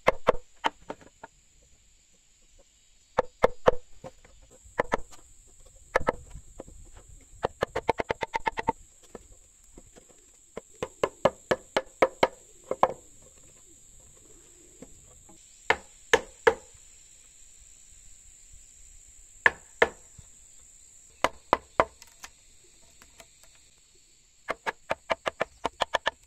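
A wood chisel being struck into timber to cut a notch: runs of sharp knocks, several blows in quick succession, broken by short pauses. A faint, steady high-pitched tone sits underneath.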